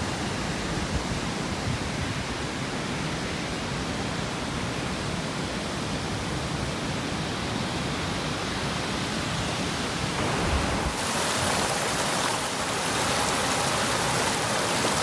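A steady rushing noise. About eleven seconds in it changes to the brighter, hissing rush of a small mountain stream splashing down over rocks close by.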